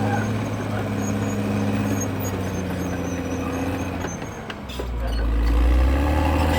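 Diesel engine of a CAT D6R XL bulldozer running under work. About four seconds in it drops off briefly, then comes back louder with a heavy low rumble.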